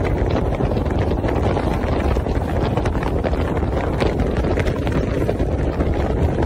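Motorboat running fast on open water: wind buffeting the microphone over the steady rush of spray along the hull.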